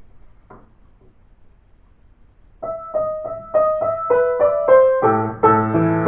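Piano being played: after a couple of quiet seconds, single notes start picking out a simple melody at about three notes a second. Near the end they give way to fuller, louder chords.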